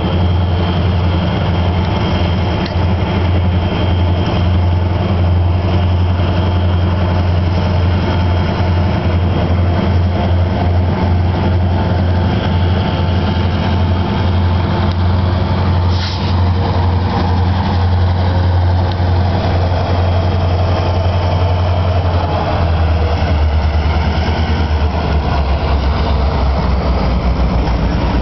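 Diesel-electric switching locomotives running with a loud, steady low engine drone. About 22 seconds in, the engine note drops lower.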